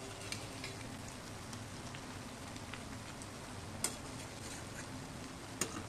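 Battered jackfruit cutlets sizzling steadily as they deep-fry in hot oil in a wok, with a few sharp ticks, the loudest about four seconds in and just before the end.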